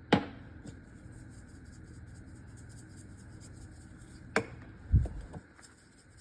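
A utensil stirring a thick corn dip in a bowl, with a sharp knock against the bowl at the start and another about four seconds in, then a duller thump.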